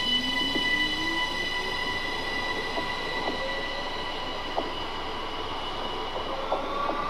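ÖBB Cityjet (Siemens Desiro ML) electric multiple unit accelerating away from the platform. Its electric drive gives a steady high whine of several notes, while a lower tone keeps rising as the train gains speed, with a few light clicks from the wheels on the rails.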